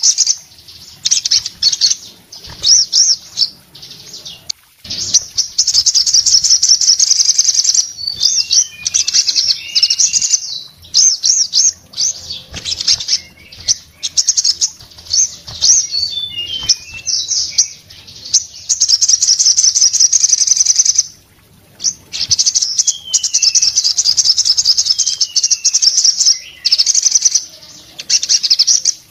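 A caged male olive-backed sunbird (sogon) singing loudly and without pause: long, very fast, high twittering trills broken by short chirps and a few falling notes.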